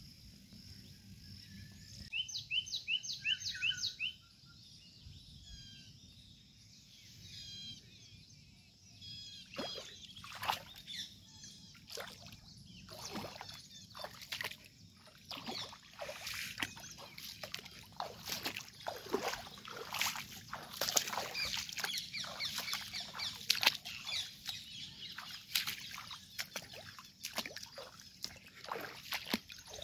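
Birds calling, with a quick run of about six repeated chirps about two seconds in. From about ten seconds on, dense rustling and swishing of leaves and stems brushing past, with footsteps, as someone walks through crops and bushes.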